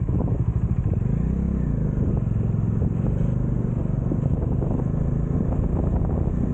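Bajaj Dominar motorcycle engine running under way, its note rising and falling a little with the throttle.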